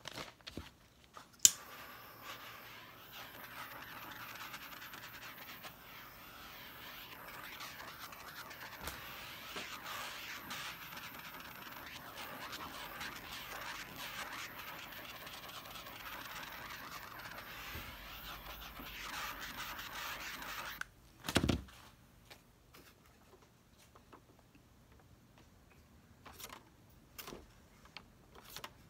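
Small bottle of paint shaken hard for nearly twenty seconds, a steady shaking noise, after a sharp click about a second in and ending in a thump. Faint taps of fingers on the vinyl record follow near the end.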